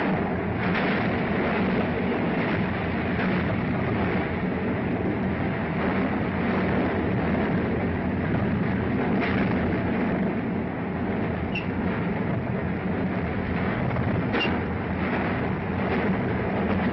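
London Underground electric tube train running through a tunnel: a steady rumble and rattle with faint wheel clicks on the rails and two brief high squeals late on.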